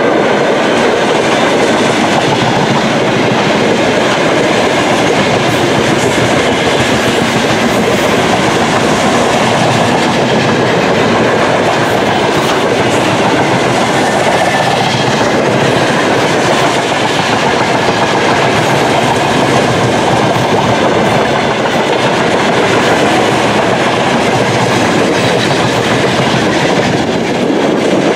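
Freight train of open wagons rolling past at close range: a steady, loud noise of steel wheels on rails, with the clatter of the wagons going by.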